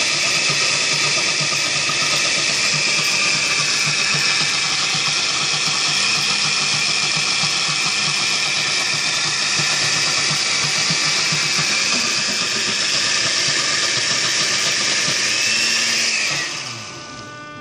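Countertop blender running steadily at full speed, blending a coconut and banana smoothie. It is switched off about a second before the end and winds down.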